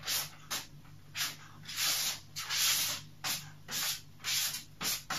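Finely chopped onion being scraped off a flexible plastic cutting board into a frying pan: about ten short rasping strokes in quick succession.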